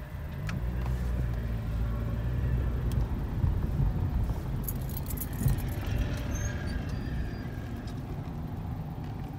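Car engine and road noise heard from inside the cabin as the car pulls away and drives over a railroad crossing, the rumble rising just after the start, with a few sharp knocks and light rattling along the way.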